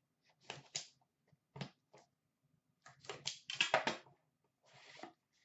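Small cardboard trading-card box being handled and opened by hand: several short clusters of scraping, rustling and light tapping.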